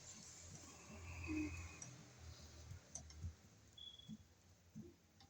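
Faint, scattered clicks and soft handling noises of copper electrical wires and hand tools being worked at an outlet box.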